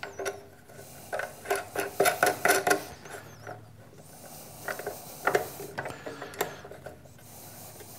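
Metal clicks and light taps as an aluminium bench-grinder tool rest is handled and seated on its sheet-metal bracket and mounting hardware: a quick run of clicks in the first few seconds, then a few single clicks.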